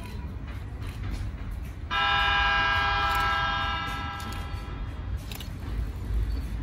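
An approaching JR Tsurumi Line electric train sounds its horn once, starting suddenly about two seconds in and holding for about two seconds before dying away, over the low rumble of the train coming in.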